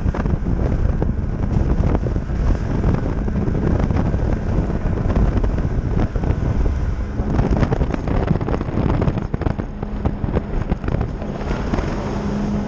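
Heavy wind buffeting the microphone over the running engine of an RNLI inshore lifeboat under way at speed, with irregular knocks and thuds throughout. A steady engine hum comes through more in the second half.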